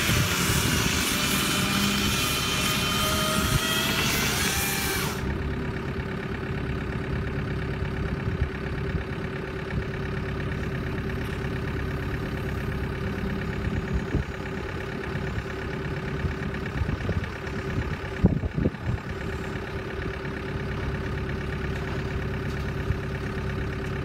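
A saw cuts through a standing tree trunk, its whine wavering in pitch, and stops abruptly about five seconds in. After that a heavy machine's engine runs steadily, with a few knocks about halfway through and again near the end.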